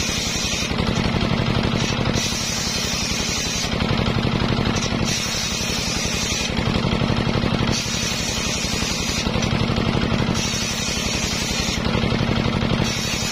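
Homemade table circular saw ripping mahogany boards, its drive engine running with a steady drone and fast even pulse under it. The hissing whine of the blade biting the wood comes and goes in spells of a second or so as the boards are pushed through.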